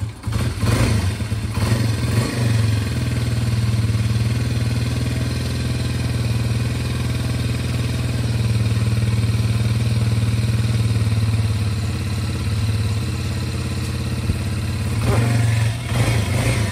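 A vehicle engine running at a steady speed with a low, even hum, cutting off abruptly near the end.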